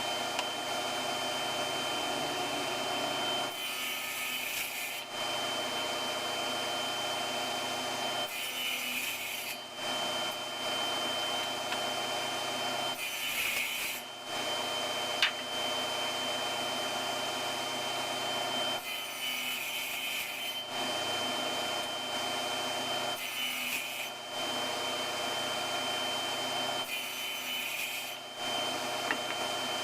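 Table saw running steadily with a high motor whine while its blade cuts wood in repeated passes for a tenon. Each pass adds a louder, harsher hiss, about six times, every four or five seconds.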